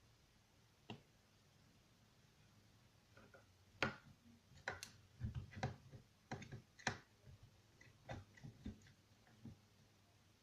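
Faint, irregular light clicks and knocks of small objects being handled: a single one about a second in, then a dozen or so scattered clicks from about four to nine and a half seconds in.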